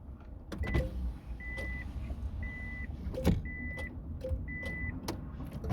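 Car warning chime beeping five times, about once a second, with a few sharp clicks and a low rumble underneath.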